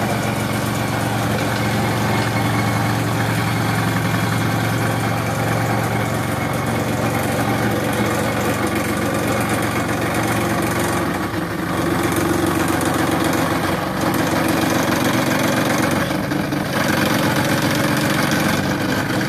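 Electric scroll saw running steadily as its blade cuts a curved profile in a wooden board, a constant motor hum with a fast blade buzz. The sound dips briefly twice, about eleven and sixteen seconds in.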